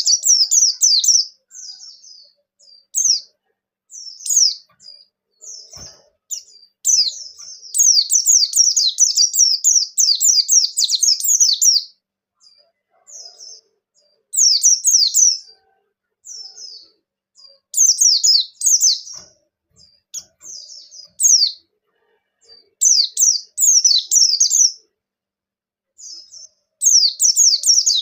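White-eye (pleci) singing a fast, high chattering song in repeated phrases of quick downward-slurred notes. The phrases are broken by short pauses, and the longest runs about five seconds.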